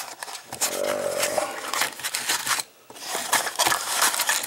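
Cardboard box of Fiocchi .22 LR cartridges being opened and handled: the cardboard scrapes and the brass cartridges click and rattle against each other, with a short pause about two and a half seconds in.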